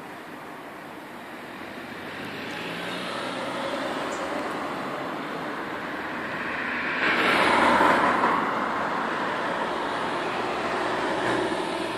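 Cars driving past on the road, tyre and engine noise swelling and fading as each goes by; the loudest pass comes about two-thirds of the way through, with another shortly before the end.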